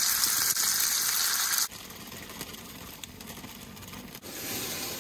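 Raw chicken pieces sizzling in hot oil in a cast-iron skillet on a camp stove. The sizzle is loud for about the first second and a half, then drops abruptly to a softer sizzle, swelling a little again near the end.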